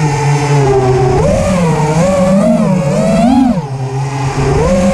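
Racing quadcopter's brushless motors and propellers whining, heard from the onboard camera, the pitch rising and falling every second or so as the throttle changes.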